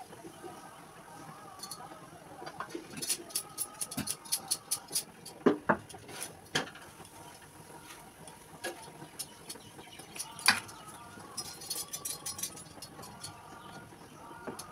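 Cooking a paratha on a flat pan over a gas burner: scattered light clicks and scrapes of a utensil working the bread, bunched into two busy spells, with three sharper knocks against the pan around the middle and two-thirds of the way through.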